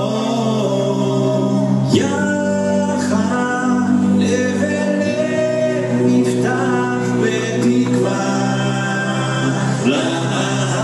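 Song with singing voices over a sustained low drone. Sharp percussive hits come in about two seconds in.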